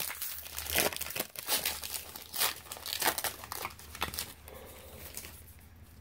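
Foil Pokémon booster pack wrapper crinkling as it is handled and torn open: a run of sharp crackles that thins out after about four seconds.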